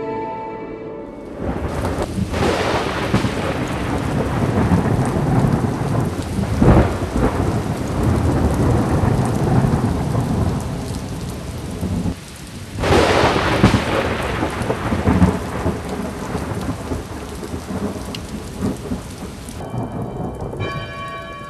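Thunderstorm: steady heavy rain with rolling thunder, the loudest claps about two, seven and thirteen seconds in. About a second in it takes over from soft music, and near the end it thins as a bell-like tune comes in.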